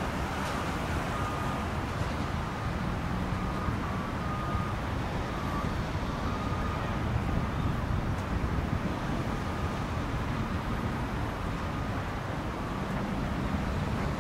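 Steady outdoor traffic rumble from a busy parking lot, with wind on the microphone. Faint short high tones come and go in the first half.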